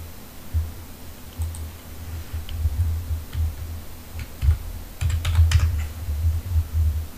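Computer keyboard typing: irregular keystrokes with dull low thumps, getting busier and louder near the end.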